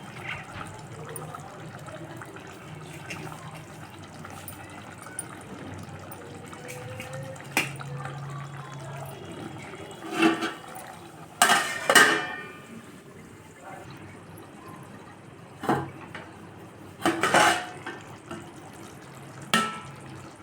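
Kitchen sounds: water running with dishes and utensils clattering now and then, the sharpest clatters coming in the second half.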